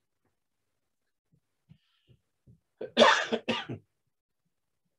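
A man coughing into his hand: one loud cough in a quick run of three bursts about three seconds in.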